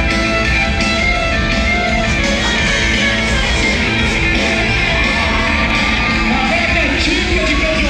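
Loud rock music with a singing voice and guitar, playing steadily.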